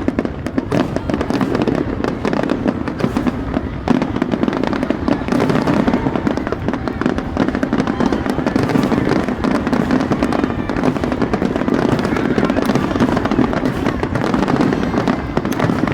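Fireworks going off in a dense, unbroken stream of bangs and crackles.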